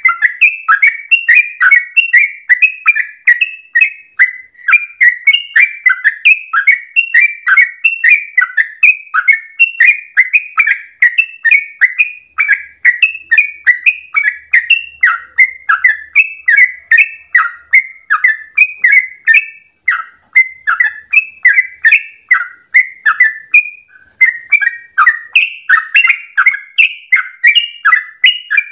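Yellow-vented bulbul (trucukan) singing a fast, continuous run of bubbly chirping notes, several a second, with only a brief break near the end: the rapid 'ropel' song of a bird in full voice, used as a lure to set other trucukan singing.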